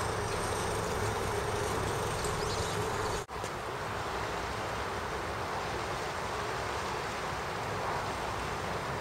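A steady engine drone with a buzzing hum. It breaks off for a moment about three seconds in, then goes on as a plain noise without the hum.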